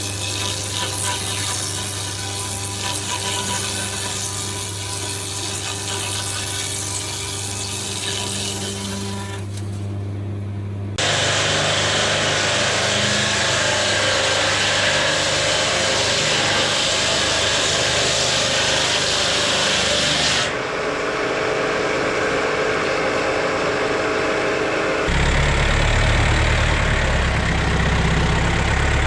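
Sawmill machinery running steadily with a low hum. It switches abruptly, as at cuts, to a louder, hissier sawing or chipping noise about a third of the way in, and to a low engine rumble near the end.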